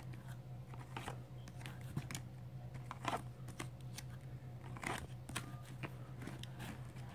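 Hard plastic Ultra Pro card holders clicking and clacking against each other as they are tipped forward one by one in a box. The sharp clicks come at irregular intervals over a steady low hum.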